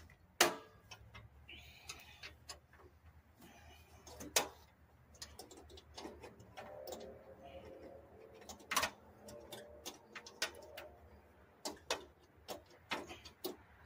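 Scattered, irregular clicks and clinks of hand tools and a bolt on metal as a bolt is fitted and tightened on a riding mower's frame.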